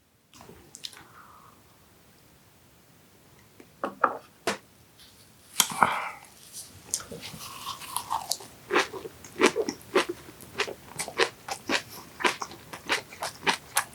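Close-up crunchy chewing of yellowtail sashimi wrapped in crisp aged kimchi. After a few quiet seconds, the crunching starts and settles into a steady run of about two crunches a second.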